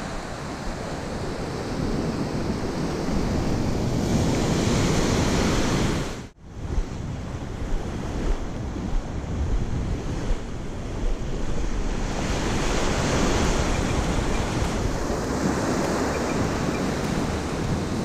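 Ocean surf washing up a sandy beach, with wind buffeting the microphone. The sound cuts out briefly about six seconds in.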